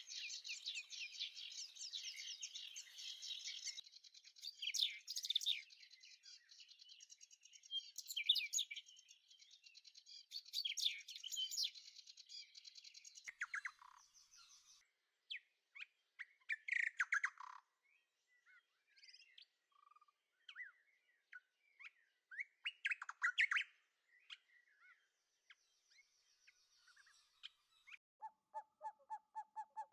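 Birdsong: a dense chorus of high chirps and trills that thins after about twelve seconds to scattered separate calls, with a lower, rapidly repeated call near the end.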